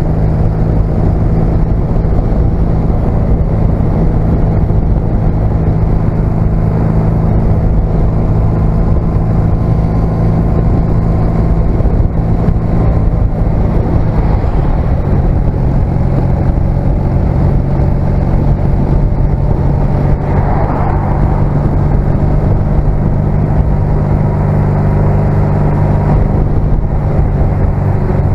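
A 1996 Honda CMX250C Rebel's air-cooled 234 cc parallel-twin engine running steadily while cruising, with a brief change in the engine note about halfway through. Wind rumble on the bike-mounted microphone.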